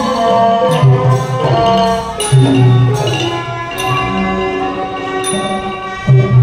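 Thai piphat mon ensemble playing: a busy run of struck, ringing notes from the Mon-style gong circles (khong mon) over low sustained tones.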